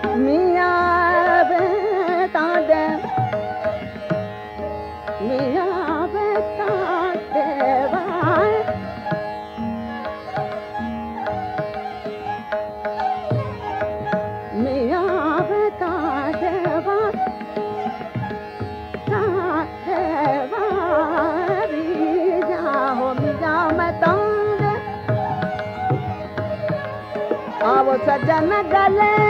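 Hindustani classical tappa: a woman singing quick, twisting ornamented phrases, with a sarangi following her melody and tabla keeping time.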